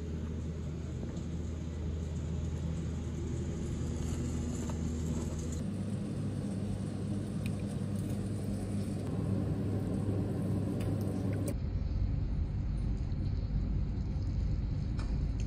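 Steady low rumble and hum of room noise, which changes abruptly twice, about a third and about two-thirds of the way through.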